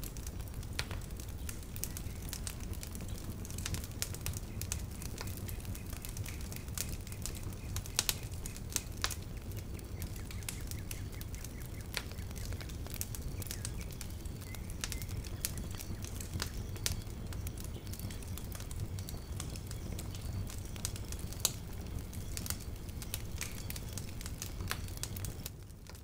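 Wood fire crackling in a fireplace: irregular sharp snaps and pops over a steady low rumble, fading down at the very end.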